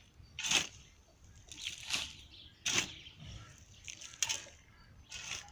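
Five or so short, irregular scrapes and rustles as a soil and animal-manure mix is handled.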